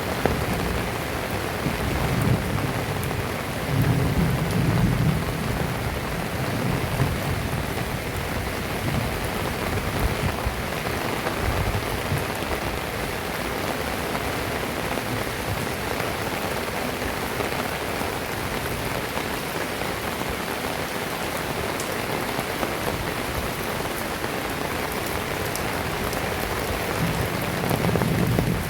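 Heavy rain falling steadily, with low rumbles of thunder swelling a few seconds in and again near the end.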